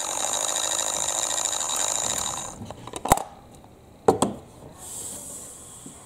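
Toy mini washing machine's small electric motor running, a steady high whine that stops about two and a half seconds in. Then a sharp click and, a second later, a few knocks from the plastic machine being handled.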